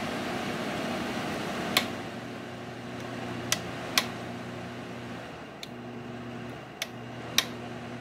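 1998 Gold Star (LG) 5,000 BTU window air conditioner running, a steady low hum under the rush of its fan. About six sharp clicks stand out over it.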